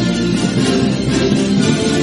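Film score music with a plucked-string part to the fore, playing at a steady level.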